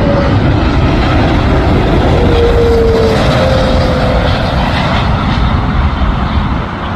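Air Canada jet airliner passing close on its landing approach: a loud, steady engine roar with deep rumble and a faint whining tone in the first half, easing slightly near the end.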